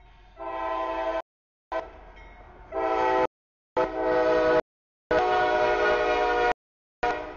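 CSX freight locomotive's multi-chime air horn sounding a series of loud blasts as the train approaches a grade crossing. The blasts are separated by complete dropouts, with the longest, about a second and a half, just past the middle and another starting near the end.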